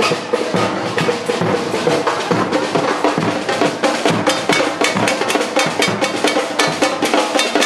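Samba drums, including a surdo bass drum, played together in a fast, steady rhythm.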